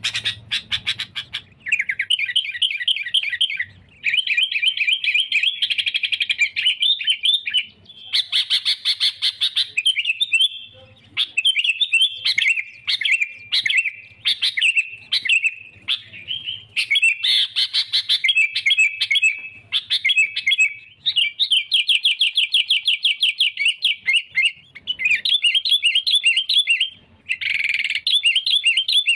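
Sooty-headed bulbul singing loudly and almost without pause, in quick high phrases and fast repeated trills broken by brief gaps every few seconds. This is the excited song of a bird challenging a rival.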